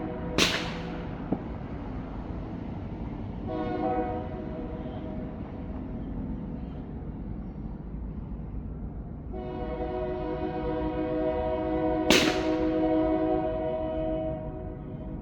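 Firework explosions: a sharp bang just after the start and another about twelve seconds in. Between them, a horn sounds a steady chord of several tones, first briefly about three and a half seconds in and then in a long blast of about five seconds.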